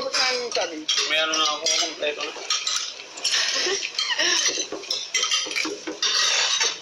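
A spoon and fork scraping and clinking against a plate as someone eats quickly, over and over. Voices can be heard in the first couple of seconds.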